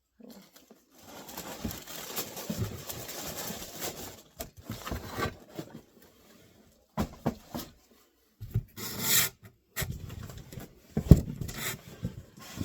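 Packaging being rummaged through and handled in a cardboard box: rustling and rubbing, then separate scrapes, a loud crinkle and a few knocks.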